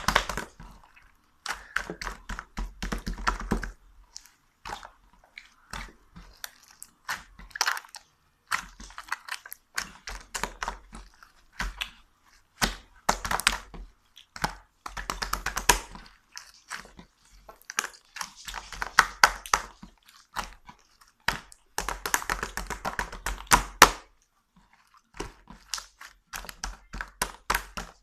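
A dog chewing something crunchy, in bouts of rapid crackling crunches with short pauses between.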